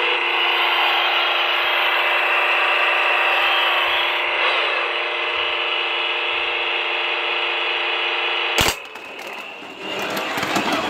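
Shake N Go toy car whirring steadily, its small motor and sound effects running at a constant pitch. A sharp click comes about eight and a half seconds in, after which the sound drops off and then comes back rougher near the end.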